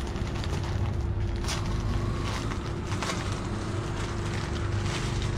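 Plastic packaging rustling and crinkling in the hands as items are unwrapped from a parcel, with a few sharper crinkles, over a steady low hum.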